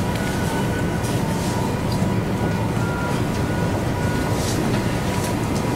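Steady low rumble and hiss of background noise, with a faint steady hum-like tone above it.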